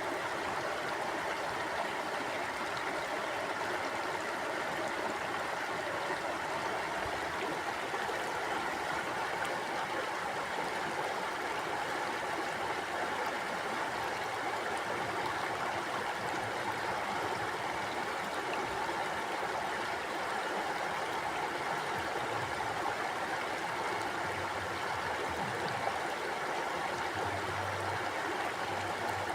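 Mountain stream flowing: a steady, even rush and babble of water over rocks.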